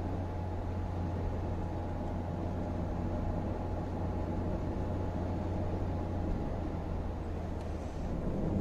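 Steady engine hum and tyre road noise of a car driving along at an even pace, heard from inside the cabin.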